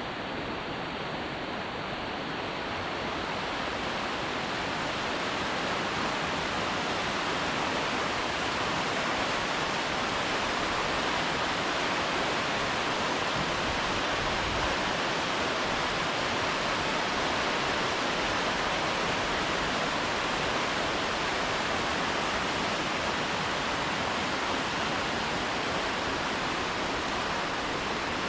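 Steady rush of falling water from a waterfall, an even hiss-like roar that does not change.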